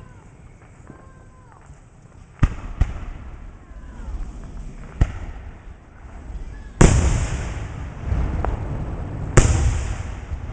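Aerial fireworks going off: a few sharp bangs from about two seconds in, then two much louder bursts near seven and nine and a half seconds in, each trailing a long echoing rumble.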